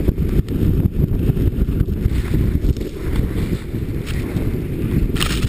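Wind buffeting the microphone as a snowboard slides fast through powder snow: a rough, fluttering low rumble with a fainter hiss above it. A brief louder hiss comes near the end.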